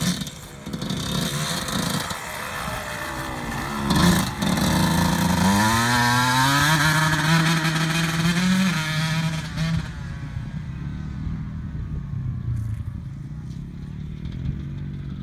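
Two-stroke dirt bike engine revving up a few seconds in with a knock, held at high revs for several seconds as it pulls away, then fading as it rides off into the distance.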